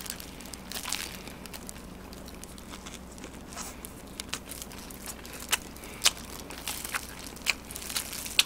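A person eating fried chicken close to the microphone: scattered crisp crunches and wet mouth clicks as bites are chewed, with some crinkling of a plastic food glove.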